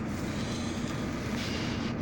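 Steady car engine hum with road noise.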